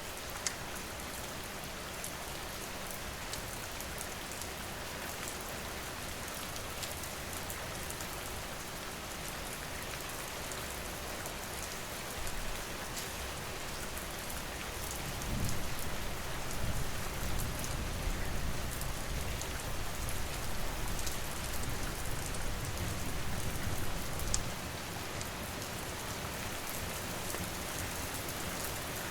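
Steady rain falling, a dense even hiss with scattered sharp ticks. About halfway through a low rumble rises under it for roughly ten seconds, then fades.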